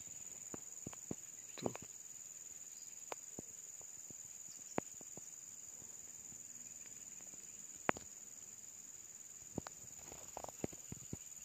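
Insects keeping up a steady, high-pitched shrill chorus, with scattered faint clicks and a few sharper single ticks over it.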